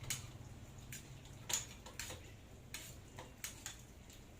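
Scattered light clicks and taps, about seven, the sharpest about a second and a half in, over a steady low hum.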